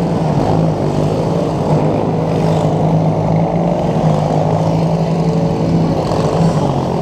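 Racing lawn mower engine running at a steady high speed close to the microphone, its pitch wavering only slightly.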